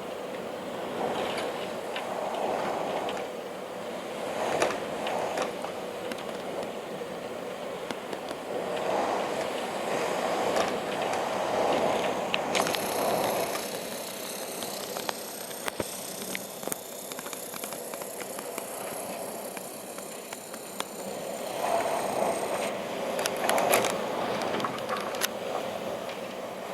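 Storm wind gusting in repeated swells a few seconds apart, with rustling leaves and scattered sharp clicks and cracks.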